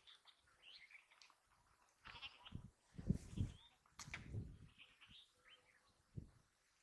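Animals calling: birds chirping and a bleat-like call, with a few low thumps about two, three and four seconds in.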